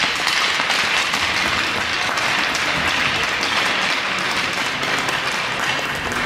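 Spectators clapping steadily, a dense even patter of many hands applauding.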